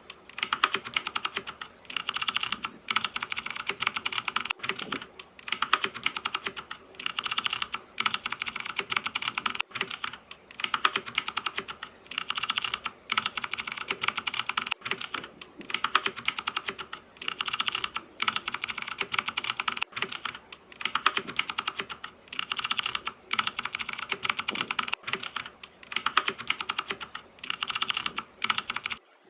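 Fast typing on a computer keyboard: rapid keystrokes in bursts of a second or two, separated by very short pauses.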